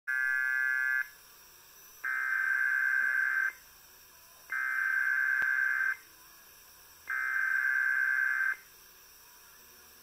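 Emergency Alert System SAME header data tones through a laptop speaker: three identical bursts of about a second and a half each, a second apart, after a shorter one-second burst of several steady tones. The header announces the tornado watch (TOA) alert that follows.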